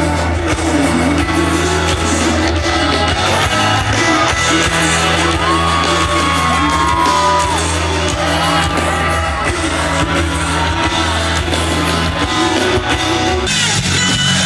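Live pop music played through a concert PA and heard from the crowd: a singer holds long, sliding high notes over a band with a steady, heavy bass line.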